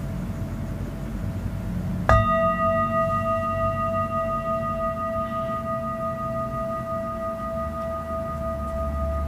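Metal singing bowl struck once about two seconds in, then ringing on with a steady hum of several overtones, the lowest the strongest.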